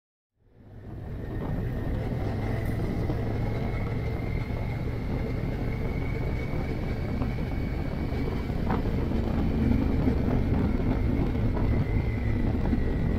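Silent at first, then fading in within the first second: an adventure motorcycle riding along a sealed road, its engine running steadily under wind noise on the helmet-mounted camera.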